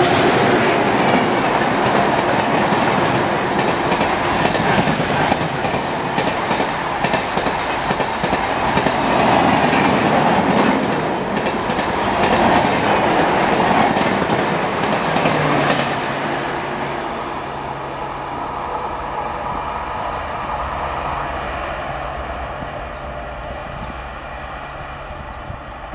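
Passenger coaches of an express train rushing past at speed, the wheels clattering over rail joints. About sixteen seconds in, the clatter drops away and the sound fades steadily as the train draws off.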